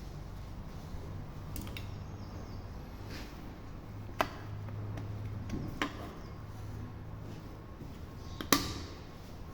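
Several sharp clicks, the loudest near the end, over a low steady hum.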